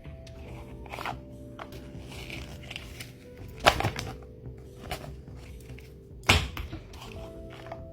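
Background music over handling noises from unboxing a speed cube: scattered clicks and taps from the box and packaging, with two louder knocks, one near the middle and one about three quarters through.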